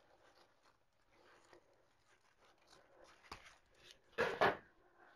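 Ribbons on a wreath rustling as they are handled and trimmed, with a sharp scissor snip about three seconds in and a louder crinkling rustle about a second later.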